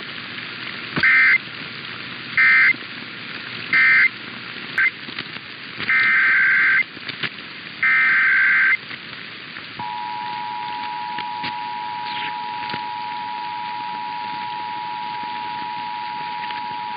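Emergency Alert System SAME data bursts: three short squawks, then two longer ones, the end-of-message codes of one test followed by the header of the next. About ten seconds in, the EAS two-tone attention signal starts, a steady dual tone that holds to the end.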